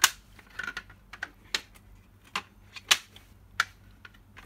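Hard plastic clicks and knocks, about seven at irregular intervals, from the black plastic frame of a JA-8018 BB target box being handled and fitted together; the loudest comes right at the start.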